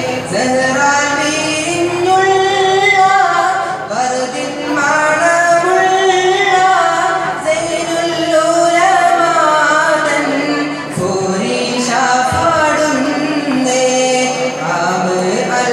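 A boy singing a Malappattu, an Arabi-Malayalam devotional song, solo into a microphone in long melodic phrases with held, ornamented notes.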